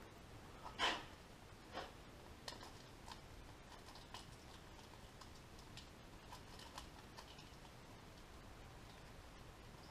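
Faint scattered clicks and taps of small hand work at a workbench, with a louder knock about a second in.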